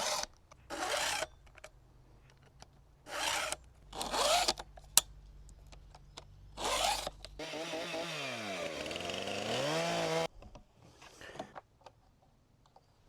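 Chainsaw chain being pulled through a hand chain sharpener, the cutters rasping against the file in short strokes, then one longer rasp of about three seconds whose pitch dips and rises again.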